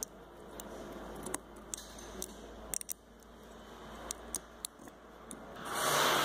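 Small metallic clicks and ticks as a brake caliper and its pads are handled and fitted by hand. A louder burst of rustling noise comes near the end.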